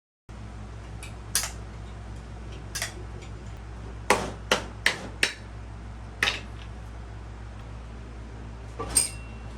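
Metal hand tools tapping and clinking on engine parts: about eight sharp, separate strikes, several in quick succession midway. One strike near the end rings briefly.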